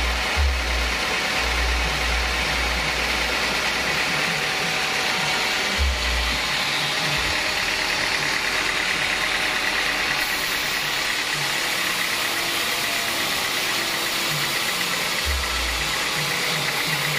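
Homemade band sawmill running, a steady loud mechanical noise from the machine and its band blade, which is sawing along a teak log. Low thuds come now and then.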